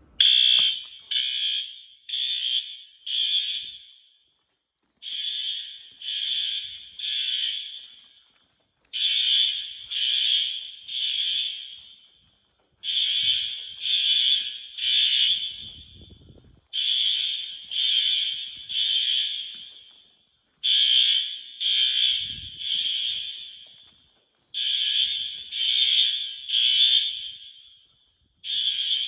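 Fire alarm horns sounding in the temporal-three evacuation pattern: three blasts, a pause, then three more, repeating about every four seconds, during a test of the system.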